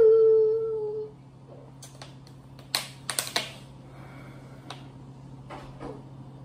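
A drawn-out vocal whine trails off in the first second, then a handful of sharp clicks and crackles from a thin plastic water bottle being gripped and squeezed while drinking, bunched together around three seconds in.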